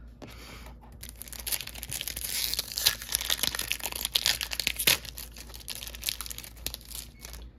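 Foil wrapper of a Pokémon card mini pack crinkling and tearing as it is opened by hand: a dense run of crackles starting about a second in.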